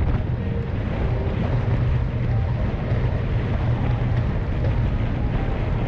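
Wind buffeting the microphone of a camera on a road bike moving at about 55 km/h: a steady, loud low rumble of rushing air.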